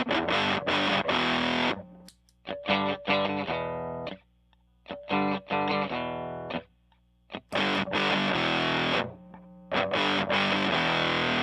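Electric guitar, an American Stratocaster, played through a handmade 'Power2' fuzz pedal into a Fender Blues Junior amp, giving a thick distorted tone. Dense fuzzed chords open and close the passage. In between comes a stretch of separate notes with a less bright tone, broken by short silences.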